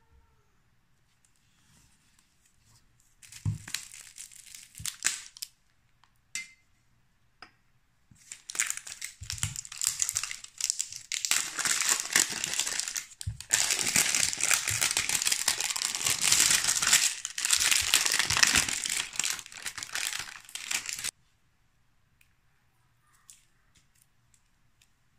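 Plastic shrink-wrap film being torn and peeled off a packaged young coconut, crinkling and crackling. There is a short stretch about three seconds in, then a long loud one from about eight seconds in that stops suddenly about thirteen seconds later.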